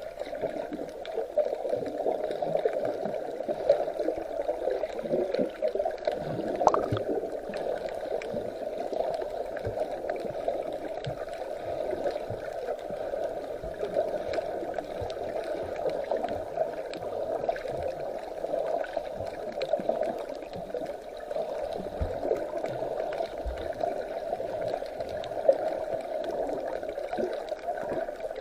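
Sea water gurgling and sloshing steadily and muffled, with small crackles and a few light knocks.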